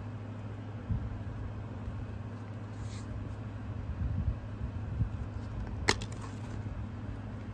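Handling noise from a DVD being unboxed: a few soft bumps and one sharp click about six seconds in, over a steady low hum.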